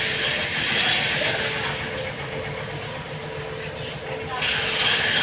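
Mixer grinder's electric motor running with a steady whirring hiss. It eases off about four seconds in, then comes back strongly.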